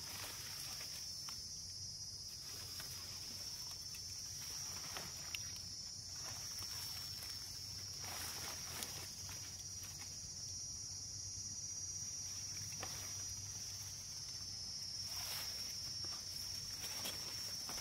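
Insects buzzing in one steady high-pitched drone, with brief rustles of dry leaves and undergrowth every few seconds as hands dig at the forest floor for termite mushrooms.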